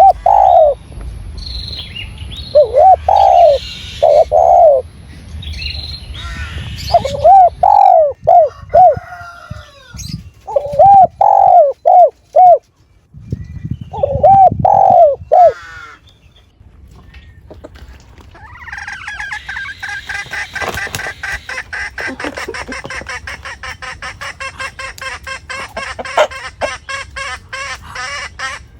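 Bird calls: loud, short arching notes repeated in groups of two to four, then, about two-thirds of the way in, a fast, steady chatter of rapid, higher-pitched notes.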